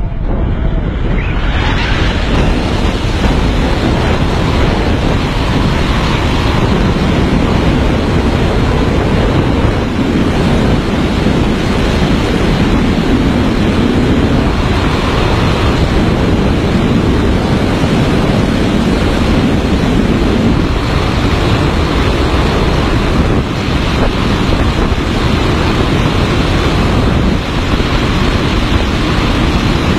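Loud, steady rush of wind over the microphone of a camera carried on a wingsuit pilot in fast gliding flight. It rises sharply in the first moments as the jump begins.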